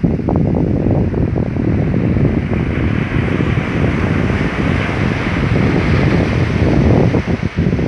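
Wind blowing on the microphone, over small sea waves breaking and washing up a sandy beach; the surf hiss swells in the middle.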